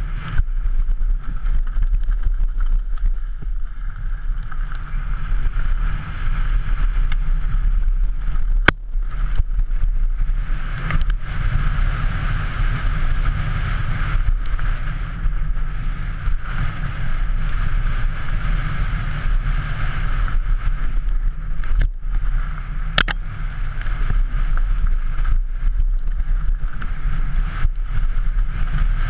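Downhill mountain bike ridden fast over a rocky dirt trail: steady wind buffeting the microphone, mixed with tyre rumble and the bike rattling over stones. A few sharp knocks stand out, one about nine seconds in and a couple more a little after twenty seconds.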